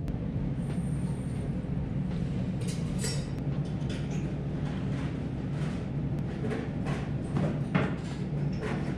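Steady low hum of room noise with scattered clicks and light knocks from a soup bowl and chopsticks being handled on the counter, with one sharper knock near the end.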